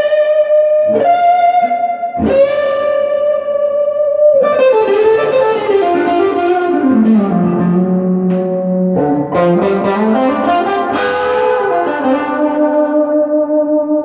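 Gibson Les Paul with Classic 57 humbuckers played through an Earthquaker Devices Ghost Echo reverb pedal and a Fender Pro Junior III tube amp. A few ringing struck notes give way, about four seconds in, to a line that slides down in pitch and back up, then settles on a long held note with a reverb tail.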